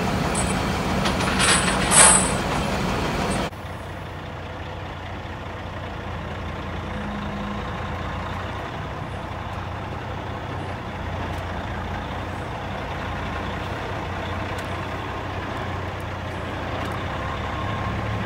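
Machine noise with two sharp clicks about a second and a half and two seconds in, then, after a cut a few seconds in, a heavy truck's engine running steadily with a low hum.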